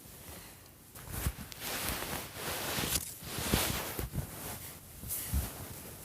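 Rustling and scratchy scraping with a few light knocks as a doll and its hair are handled and brushed through.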